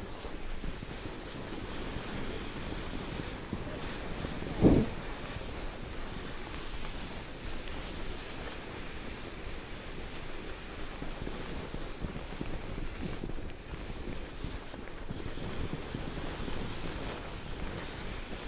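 Steady wind noise rushing over the microphone, with one brief low thump about five seconds in.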